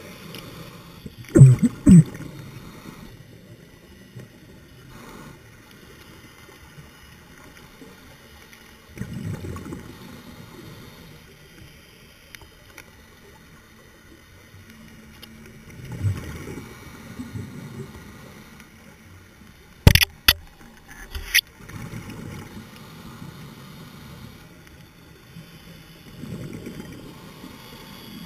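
A scuba diver's exhaled bubbles gurgling, heard through an underwater camera housing as low, muffled bursts every several seconds. A few sharp clicks come about two-thirds of the way through.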